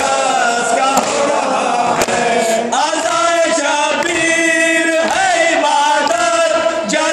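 Men chanting a noha, a Shia mourning lament, unaccompanied, in long held and wavering notes. A few sharp slaps of chest-beating (matam) are heard among the singing.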